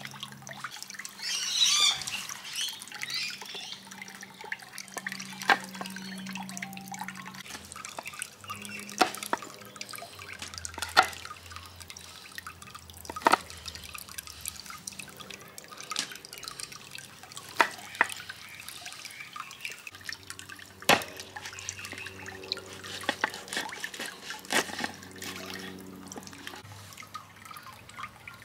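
Kitchen clatter while cooking: sharp clicks and knocks at irregular intervals, about every two to four seconds, over a low steady hum, with a short hiss about a second and a half in.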